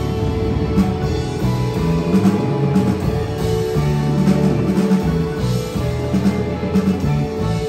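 Live rock band playing: a moving electric bass line under electric guitar and drum kit, with a held guitar note ringing through.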